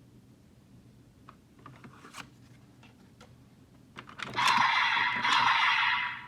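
Light plastic clicks as the Oneness Raise Buckle toy is handled, then about two seconds of a loud electronic sound effect from the buckle's small speaker that cuts off sharply near the end.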